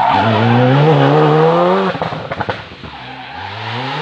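Rally car engine accelerating hard, its pitch climbing for about two seconds, then cutting off with a short burst of crackles and pops before it picks up and climbs again near the end.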